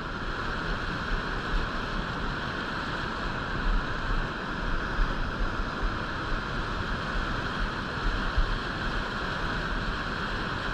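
Churning whitewater below a river dam, rushing steadily.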